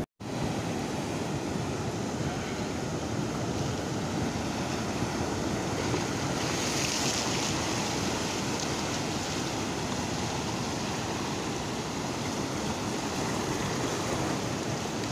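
Sea surf breaking and washing up a sandy shore, a steady rush of waves and foam, swelling to a louder hiss about six to eight seconds in as a wave surges in.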